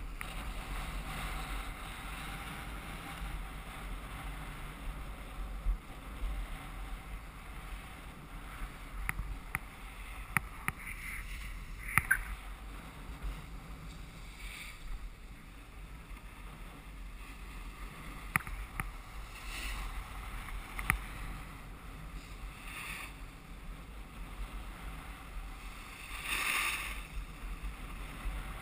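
Skis sliding on packed snow, a steady hiss with scattered sharp clicks and several short louder scraping hisses, with wind rumbling on the microphone underneath.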